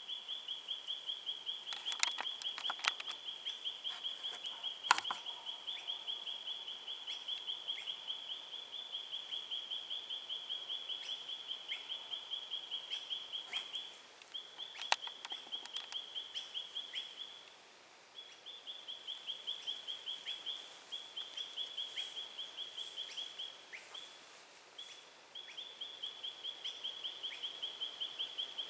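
A high-pitched chirping call from a small animal, pulsing about four times a second in long runs with short breaks. A few sharp clicks and knocks come about two, three and five seconds in and again about fifteen seconds in.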